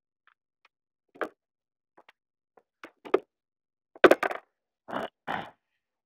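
Clicks and knocks from a steel pin being fetched and handled: a few faint clicks at first, then a cluster of sharp knocks about four seconds in and two more about a second later.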